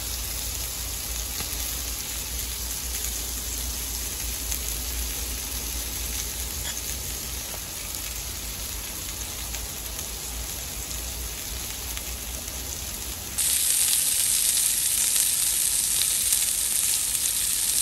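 Basted chicken leg quarters sizzling on a hot grill grate, a steady hiss that jumps clearly louder about 13 seconds in.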